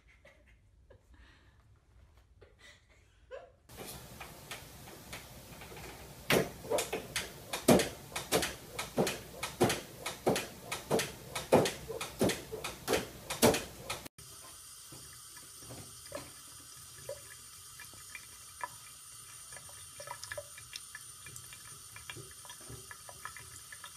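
A run of loud, irregular knocks as a cat paws and bats at a door, then a water tap running steadily into a sink.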